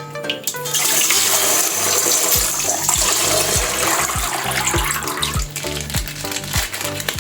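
Background music with a steady beat, under a loud rushing hiss that sets in about half a second in and fades out around five seconds in.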